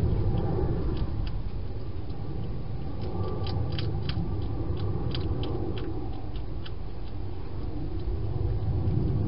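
A European hedgehog eating at a plastic-box feeding station: scattered sharp crunching clicks, thickest from about three to five and a half seconds in, over a steady low rumble.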